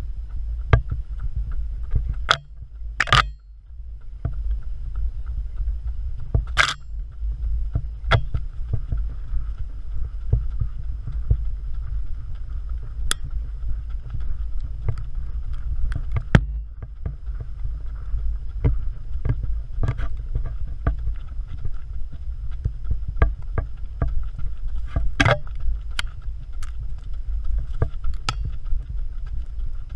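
Steady low rumble of wind and handling noise on a runner's handheld action camera, with scattered sharp knocks and scuffs from footfalls on a dirt trail.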